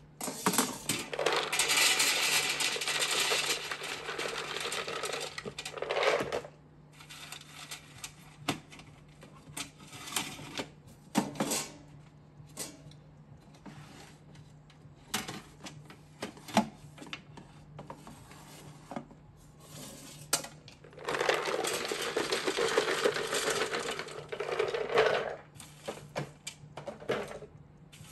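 Raw hazelnuts poured from a jar onto metal air-fryer oven trays: two long runs of clattering, one starting about half a second in and lasting some six seconds, the other about twenty seconds in and lasting some four seconds. In between, scattered clicks of nuts being spread and pushed around the tray by hand.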